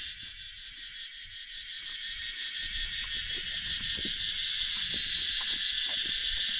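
Insects chirring in a steady, high, pulsing chorus that grows gradually louder, with a few faint knocks underneath.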